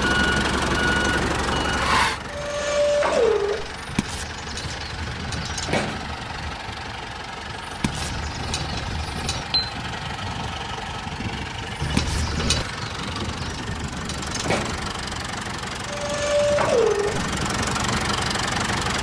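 A small motor running steadily with a low hum, with scattered clicks and knocks. A short falling tone sounds twice, about three seconds in and again near the end.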